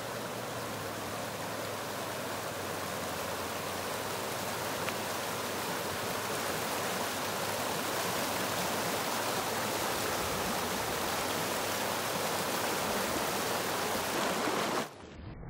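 Steady rush of flowing water, cut off abruptly near the end.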